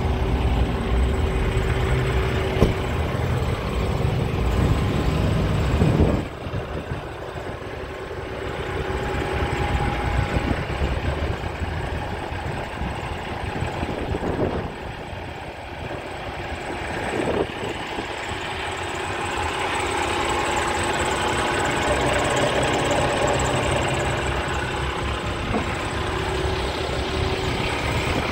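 Diesel engine of a 2016 Freightliner Cascadia semi-truck idling steadily, with a sharp thump about six seconds in, after which it sounds quieter for a while.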